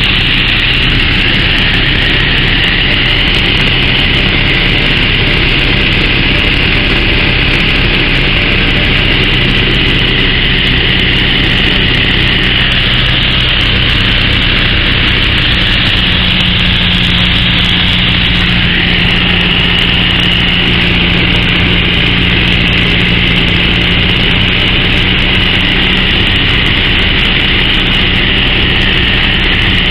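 Piper PA-38 Tomahawk's four-cylinder Lycoming engine and propeller droning steadily, heard from inside the small cockpit. The drone's tone shifts slightly about halfway through.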